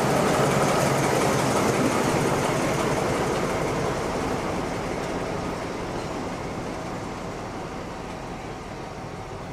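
Diesel locomotive DR V 100 003 passing slowly with its engine running, the sound steadily fading as it moves away.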